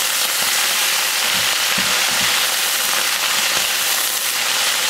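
Watercress stir-frying over high heat in a pan of hot oil and garlic: steady sizzling and crackling as the wet leaves hit the oil, while a wooden slotted spatula tosses the greens.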